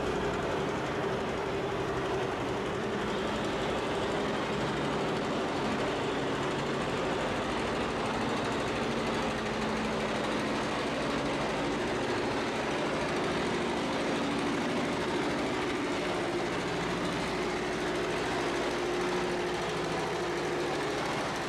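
Vintage John Deere two-cylinder tractor engine running steadily under heavy load as it drags a weight-transfer pulling sled.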